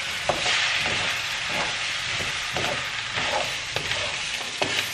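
Fried rice and vegetables sizzling in a hot wok, with a wooden spatula scraping and turning it about once a second.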